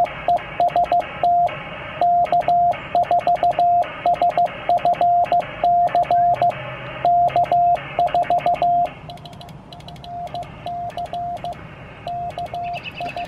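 Morse code sidetone from an Icom IC-703 transceiver's memory keyer: a single steady tone keyed in dots and dashes, sending the beacon test message 'TEST K4SFC' over and over on CW. The keying gets quieter about two-thirds of the way through, with a faint hiss underneath.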